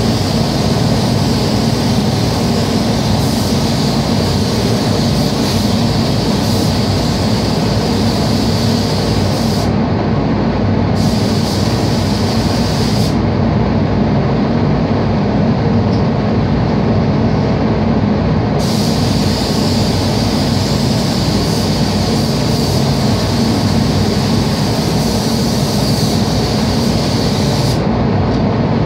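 Spray booth ventilation fans running with a steady low rush, under the hiss of a compressed-air paint spray gun that cuts off twice, briefly about ten seconds in and for about five seconds from thirteen seconds, and again near the end as the painter moves between panels.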